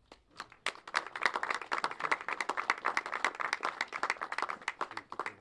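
A small crowd applauding: many separate hand claps that build up about a second in and thin out near the end.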